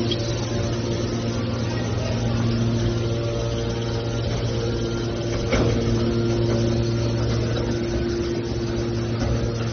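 Hydraulic scrap steel baler running: a steady machine hum with a few held tones, and a single sharp knock about five and a half seconds in.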